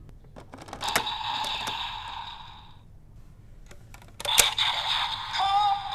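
Plastic clicks from the DX Volcano Vistamp toy being handled and snapped onto a second Vistamp. Two bursts of electronic sound effects play from the toy's speaker, one about a second in and another after a sharp click at about four seconds.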